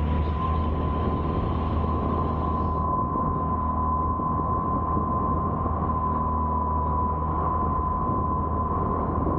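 Boat engine running steadily under way: a constant low drone with a steady high whine over it, and a hiss that drops away about three seconds in.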